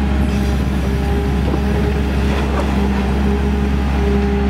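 Engine of an amphibious excavator-dredger running steadily at work, a constant low drone.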